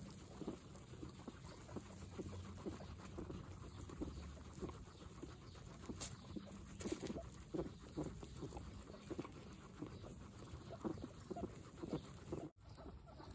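Guinea pigs chewing fresh grass and hay: soft, irregular crunching and nibbling clicks, several at once. The sound breaks off for an instant near the end.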